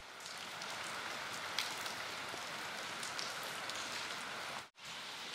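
Steady rain falling, an even hiss with a few louder single drops; the sound cuts out for a moment near the end.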